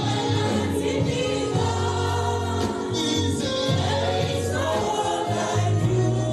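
Gospel worship music: a choir singing over a band with a steady bass line.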